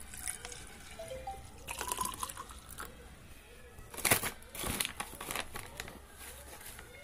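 Water pouring from a plastic bottle into a plastic shaker cup, with short rising tones as it fills, then the loud crinkling of a foil-lined MuscleBlaze protein-powder pouch being opened and handled, loudest about four seconds in.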